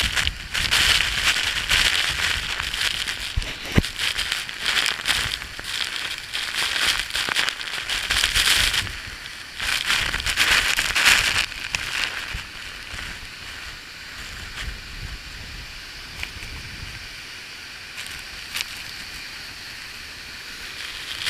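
Waterfall spray and rushing water, a loud hiss that swells several times in the first twelve seconds and then settles lower, with crackling and low rumble on the microphone.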